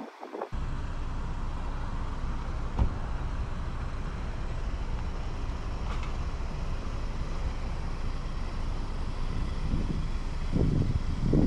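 Steady road and tyre noise from a 2022 Hyundai Tucson SEL AWD on the move, starting abruptly about half a second in. A single sharp knock comes near three seconds in, and a few low thumps near the end.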